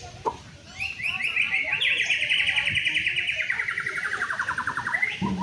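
White-rumped shama (murai batu) singing a long, fast run of rapidly repeated notes that starts about a second in and slides steadily down in pitch over about four seconds.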